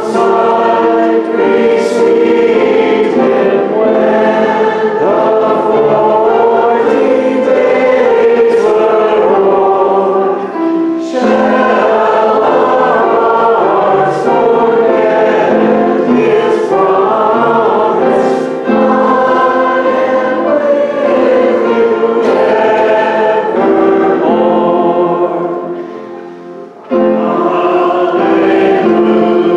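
Congregation singing a hymn with instrumental accompaniment, ending one verse. After a short pause near the end, the next verse begins.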